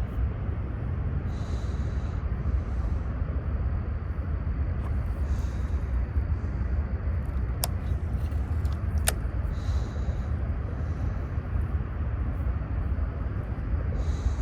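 Steady low rumble throughout, with two sharp clicks about a second and a half apart midway through.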